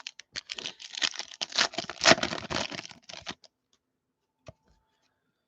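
Trading cards being slid and flipped through by hand: a quick run of soft clicks and rustles of card stock for about three and a half seconds, then a few single taps.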